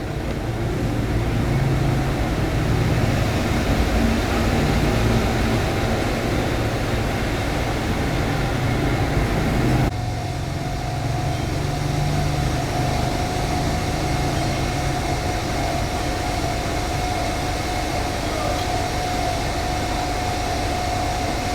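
Steady machine running noise with a low rumble. It changes abruptly about ten seconds in, after which a steady mid-pitched whine sits above it.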